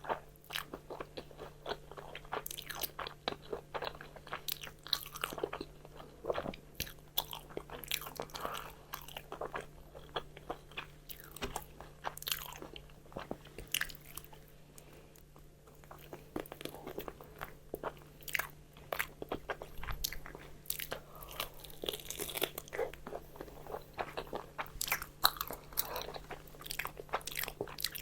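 Close-miked eating: a person biting into and chewing crispy fried chicken, with a rapid string of sharp crunches and crackles from the fried batter. It goes quieter for a couple of seconds about halfway through, then the crunching resumes.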